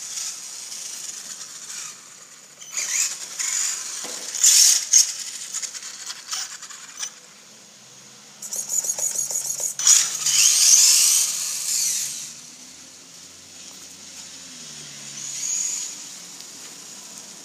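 Traxxas 1/16 Slash VXL brushless motor whining in several surges as the RC truck accelerates and drifts on wet pavement, its tyres hissing through the water. It is loudest about ten seconds in, as the truck passes close.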